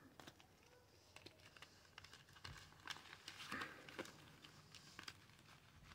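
Faint rustling and light, scattered clicks of paper cash being handled and counted.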